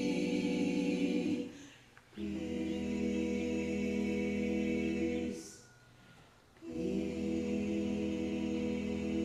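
A small choir singing a cappella in long held chords. One chord ends about a second and a half in, and two more follow, each held for about three seconds with a short breath between.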